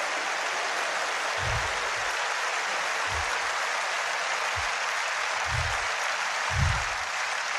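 Church congregation applauding steadily, with a few dull low thumps underneath.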